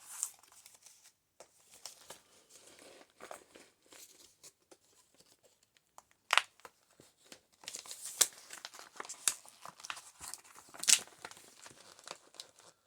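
Paper crinkling and rustling as the pages of a thick, overstuffed paper junk journal are handled and turned, with many short, sharp crackles, the loudest about six seconds in and several more near the end.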